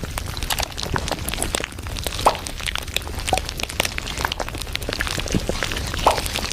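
Café ambience: a steady low hum under frequent short clicks and clinks of cups, dishes and cutlery being handled.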